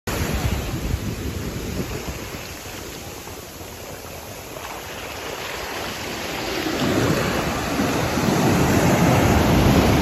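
Ocean surf breaking and washing up the shallows: a steady rushing that eases off over the first few seconds, then swells again about two-thirds of the way through as a wave breaks, and is loudest near the end.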